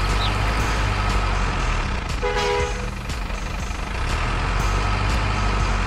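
Heavy diesel truck engine sound running steadily with a low rumble, and a short horn toot a little over two seconds in.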